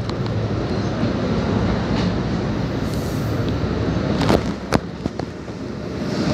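NJ Transit double-deck passenger coaches rolling past along the platform, a steady rumble of wheels on rail with two sharp clicks about two-thirds through, getting louder again near the end.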